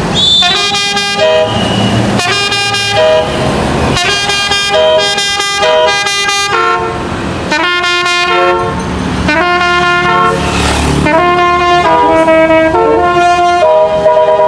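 Basuri telolet horn on a bus playing a tune: a series of held, chord-like horn notes that step from pitch to pitch in short phrases with brief gaps between them.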